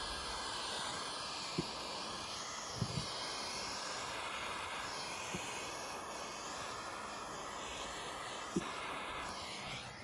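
Handheld butane torch lighter burning with a steady hiss as its flame melts a tangle of 3D-printer filament strings, with a few faint clicks along the way. The hiss drops away near the end.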